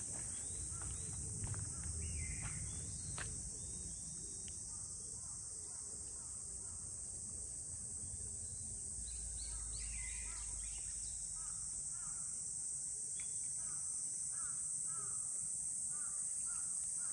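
Steady, unbroken high-pitched chorus of insects, with scattered short bird chirps, mostly in the second half, over a low rumble.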